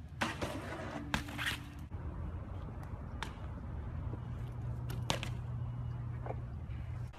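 BMX bikes on concrete: a hard landing with a short scrape about a second in, then scattered sharp clicks and knocks from the bikes, over a low steady hum.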